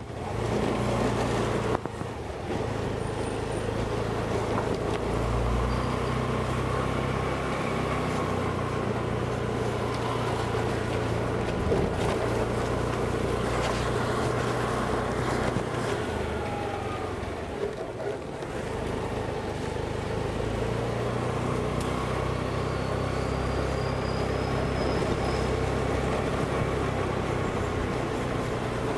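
Honda Dio scooter's single-cylinder engine running as it rides slowly along a street, with road and wind noise. The engine note eases off briefly a little past halfway, then picks up again.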